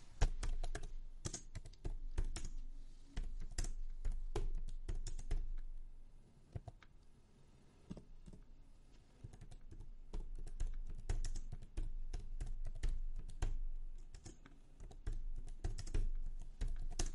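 Typing on a computer keyboard: a rapid, irregular run of key clicks that thins out for a few seconds around the middle, then picks up again.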